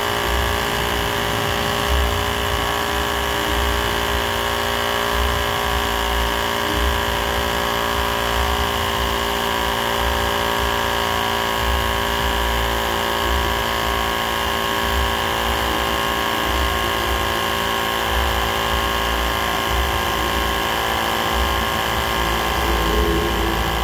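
Mini electric air compressor running steadily as it pumps up a tyre: a constant motor-and-piston hum with an uneven low throb.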